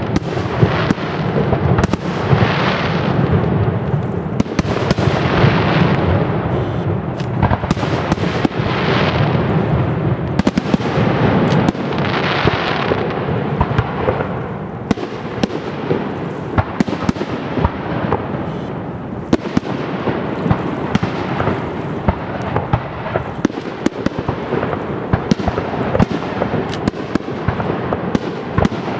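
Aerial fireworks shells bursting in quick succession: many sharp bangs and cracks over a continuous rumble. There are several rushing swells of hiss in the first half.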